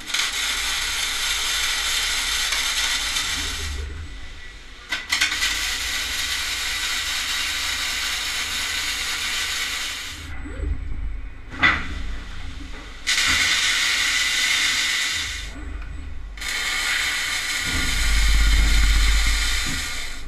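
Robotic welding arc crackling and hissing in four long runs of a few seconds each, stopping briefly between welds. A sharp snap sounds in one of the pauses.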